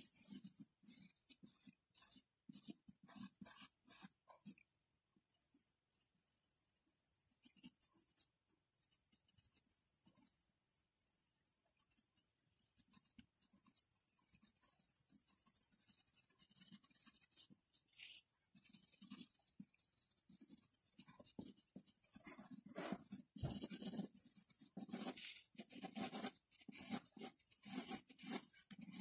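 Graphite pencil scratching on drawing paper in many short, quick shading strokes. It is faint, goes sparse for several seconds after the opening, then runs denser and steadier through the second half.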